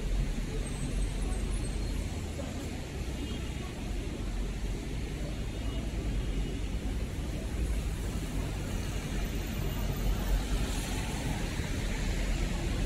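Steady city street traffic: the low rumble and tyre hiss of passing vehicles, with one passing a little closer near the end.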